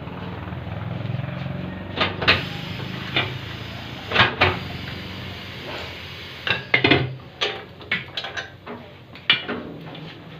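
Irregular metal clanks and knocks as a steel car wheel and tyre are handled on a tyre-changing machine, over a low steady hum.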